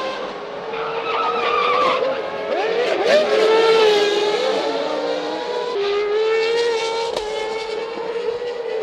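Several Formula One cars' V10 engines running at high revs, overlapping, their pitches sliding up and down as they accelerate, shift and pass.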